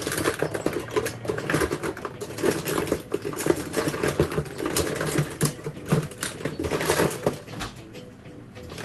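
Makeup products and plastic cases clattering and clicking as they are rummaged through by hand: a dense run of small knocks that eases off near the end.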